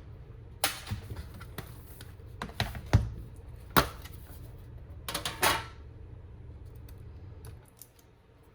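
Irregular sharp clicks and light clatters of small hard objects being handled, over a steady low hum that stops near the end.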